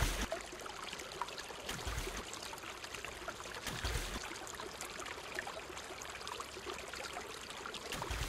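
Pool water splashing and sloshing as a dolphin thrashes against a swimmer, with a few dull thumps about two seconds in, near four seconds and near the end.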